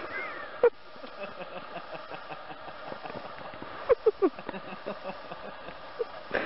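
A dog bounding through deep snow, heard as a few short sharp sounds: a click under a second in and a quick cluster about four seconds in, over a steady background hum.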